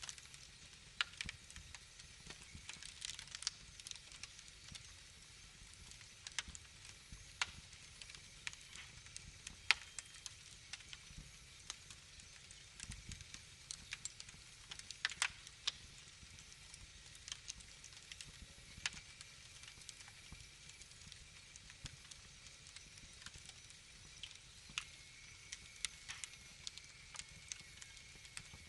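Wood fire crackling in a fireplace, with irregular sharp pops and snaps over a faint steady hiss.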